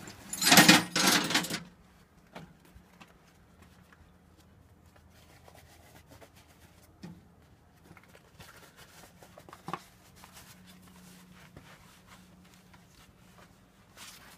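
A loud, brief rustle of clothing brushing against the phone's microphone about half a second in. After it, quiet background with a few faint scattered clicks and taps.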